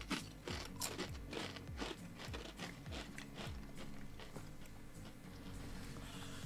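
Wavy Pringles crisps being bitten and chewed: a quick run of short, dry crunches.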